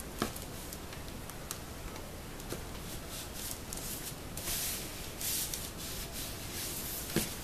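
Hands rubbing and smoothing a sheet of EVA craft foam down onto glued cardboard milk cartons, in soft swishing strokes. There is a sharp click just after the start and a knock near the end.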